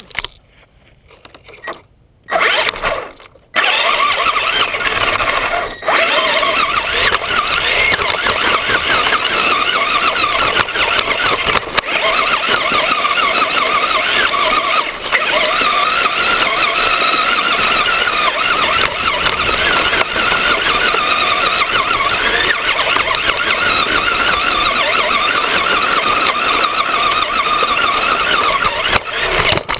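Traxxas RC car's motor heard from a camera mounted on the car. After a few short bursts it runs hard from about two seconds in, with a loud high whine whose pitch wavers with the throttle.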